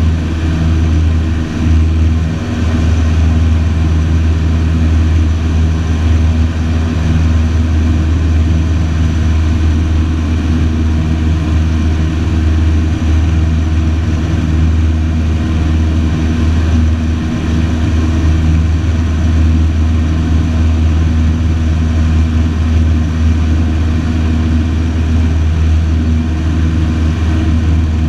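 Single-engine piston light aircraft's engine and propeller running steadily in flight, a low, even hum heard from inside the cockpit.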